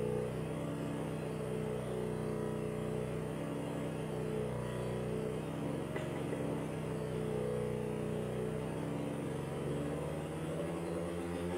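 Analog synthesizer playing a steady low drone of several sustained tones; near the end the sound begins to pulse rhythmically.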